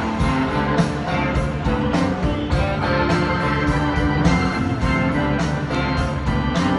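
Live rock band playing: electric guitar and keyboard over drums, with a steady beat.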